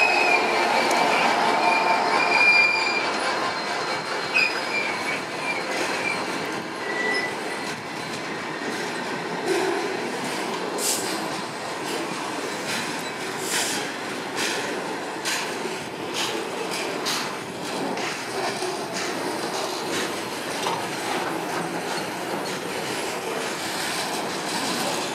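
Class 66 diesel freight locomotive running past, loudest in the first few seconds, with high wheel squeal over the first several seconds. A long rake of covered steel-coil wagons then rolls by, wheels clicking over the rail joints.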